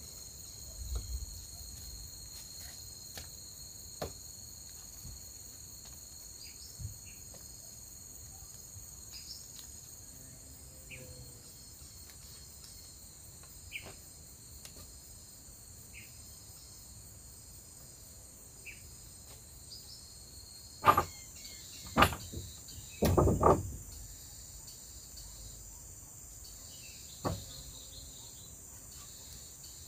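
Steady high-pitched chorus of insects, crickets or cicadas, with a few short chirps. Several sharp knocks come about two-thirds of the way in, one more near the end.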